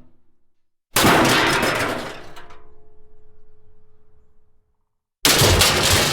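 Metal crash sound effects. A loud crash of clattering metal hits about a second in and rings down over three or four seconds, with a steady ringing note. A second crash starts about five seconds in, and the tail of an earlier crash fades out at the start.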